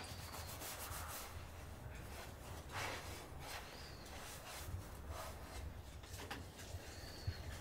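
Dishes and utensils being scrubbed by hand: irregular soft rubbing strokes, with one stronger stroke about three seconds in.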